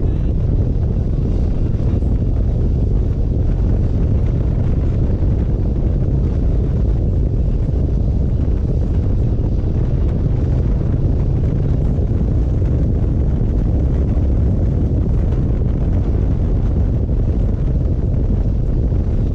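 Harley-Davidson Road Glide's V-twin engine running steadily at road speed, mixed with wind rushing over the microphone.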